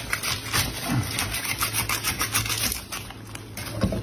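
Large kitchen knife sawing back and forth through the spiny shell of a cooked king crab, a quick run of rasping, scraping strokes that eases off about three seconds in.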